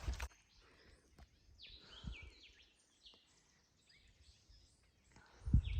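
Woodland songbirds calling: a steady series of short, high, slurred chirps. A brief noise cuts off right at the start, and a couple of low thuds come near the end.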